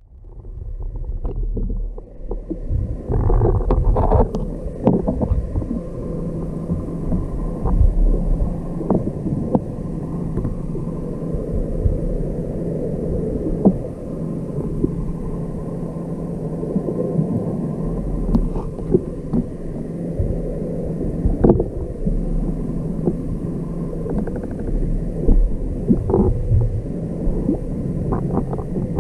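Underwater camera audio: a low rumble of water moving around the housing, with scattered knocks and clicks as the rig is handled, over a faint steady hum.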